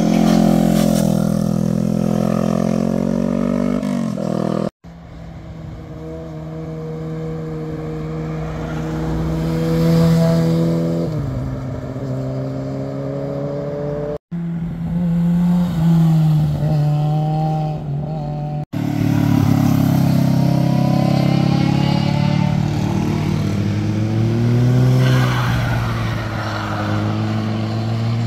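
Motorcycles passing one after another through a hairpin bend, engine notes rising and falling with throttle and gear changes. The sound breaks off abruptly three times as one pass gives way to the next.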